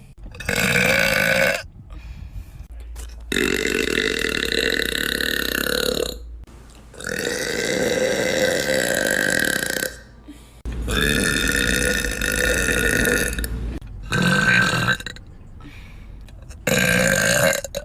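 A young woman burping deliberately, six burps in a row. Three of them are long drawn-out burps of nearly three seconds each, and three are shorter, the last near the end.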